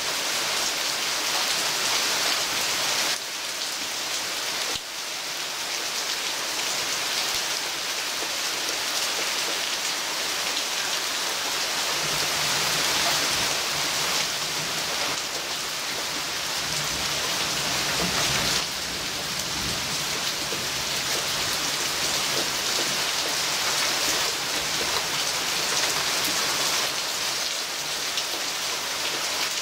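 Heavy thunderstorm rain pouring down steadily, a dense even hiss with brief dips in loudness a few times.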